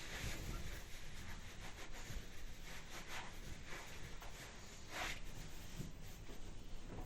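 Hands being dried with a soft towel: irregular soft rubbing swishes of cloth on skin, the strongest about five seconds in.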